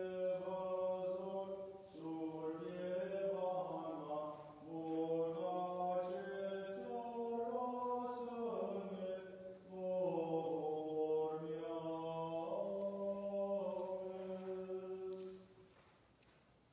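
A man's voice chanting Armenian liturgical chant in four long phrases of held notes, stopping shortly before the end.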